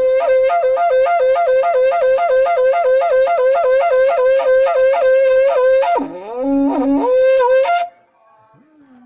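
Naga buffalo horn blown in rapidly repeated, pulsing notes on one steady pitch. About six seconds in, the pitch drops sharply and a brief lower note sounds, then the high pulsing returns and cuts off abruptly near the end.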